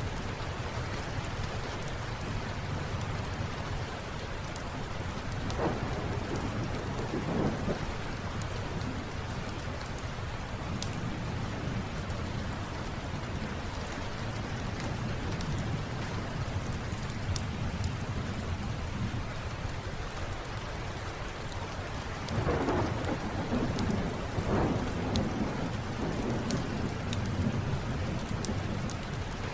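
Steady rain with a low rumble of thunder beneath, swelling twice into louder rolls of thunder. Scattered small sharp pops of a crackling wood fire run through it.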